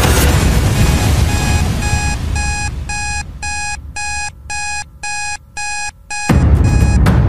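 Electronic alarm-clock-style beeping, about two short pitched beeps a second, signalling that the exercise countdown timer has run out. Music fades under the beeps and comes back loud near the end.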